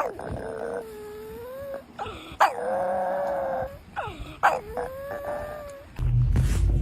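A dog giving three long, drawn-out whining howls, each about a second and a half. A low rumble starts near the end.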